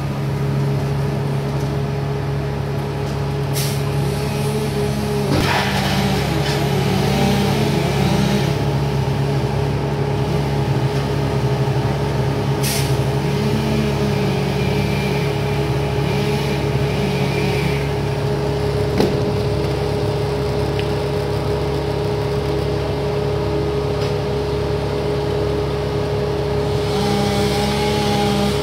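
An engine runs steadily, its pitch lifting briefly now and then, with a few sharp knocks over it.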